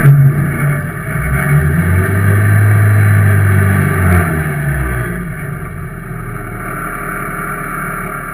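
Ministock race car engines heard from inside a stopped ministock's cabin: a loud engine sound builds about a second in and fades after about four seconds, then a steadier, quieter engine sound carries on.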